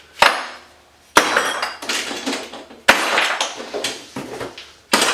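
Scrap metal fittings being tossed into a bucket: four sharp crashes, each followed by a second or so of clinking and rattling as the pieces settle.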